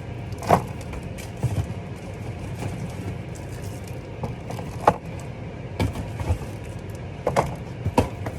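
Small bottles of chocolate milk being set one by one into a plastic fridge container: scattered knocks and clicks of bottles against plastic, over a steady low hum.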